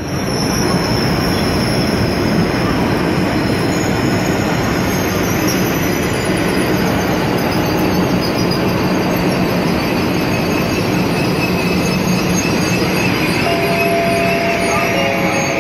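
ICE high-speed train rolling along the platform, a loud steady rumble of wheels on rails with high wheel squeal. A few steady whining tones join in near the end.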